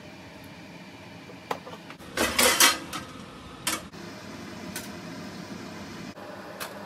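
Kitchen utensils clattering against dishes over a steady low hum. There is a single knock about a second and a half in, a loud burst of clatter two to three seconds in, then a few more single knocks.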